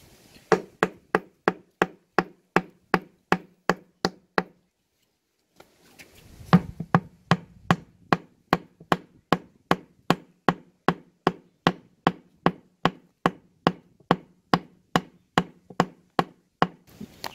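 Steady knocking on a brick set into the dried clay wall at the base of a mud tandoor oven, about three sharp knocks a second, to break it loose. The knocks pause for about a second and a half after the first dozen, then resume a little louder.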